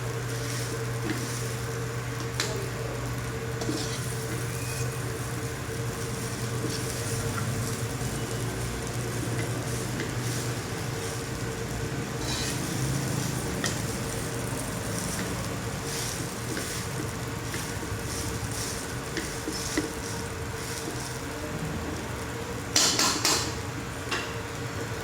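Fried rice sizzling in a pan while a utensil stirs and scrapes it, with scattered light clinks. There is a louder clatter near the end.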